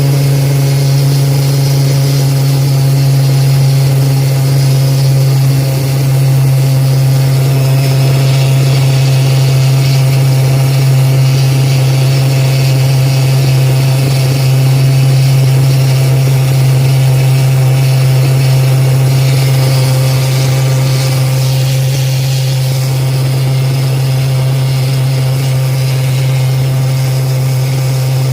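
An engine running steadily at a constant pitch, giving a loud, unchanging low hum.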